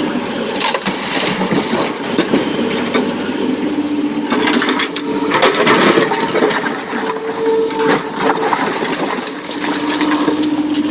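Excavator working: a steady diesel engine and hydraulic hum with a tone that shifts in pitch partway through, and scattered clattering and knocks throughout.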